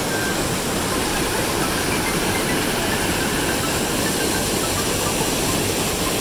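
Rushing river water: whitewater pouring through a narrow rock chute, a steady, even rush.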